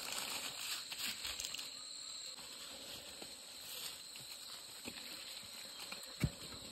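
Faint steady high insect drone with scattered light knocks and rustles, one sharper knock near the end.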